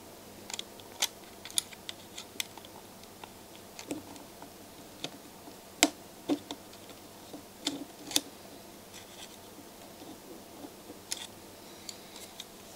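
Irregular light clicks and taps of metal and plastic from the removed disc-loading mechanism of a Sony MDS-JE520 MiniDisc deck as it is handled and probed with a screwdriver, the sharpest clicks about six and eight seconds in.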